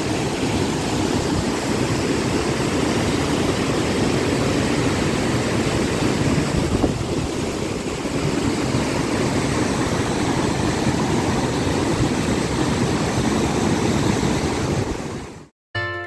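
Steady rush of Hundru Falls, a continuous roar of falling water. It cuts off suddenly just before the end and music starts.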